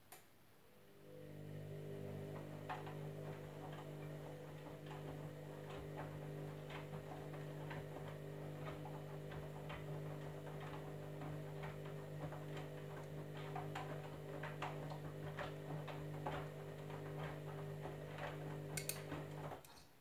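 Candy Grand'O Vita front-loading washing machine turning its drum during a wash tumble: the motor's steady hum starts about a second in and stops just before the end. Over it come irregular light clicks and taps from the wet load tumbling in the drum.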